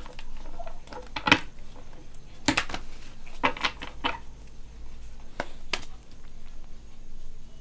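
Tarot cards being shuffled by hand, with a series of sharp clicks as the deck's edge knocks on the table top and cards slap together.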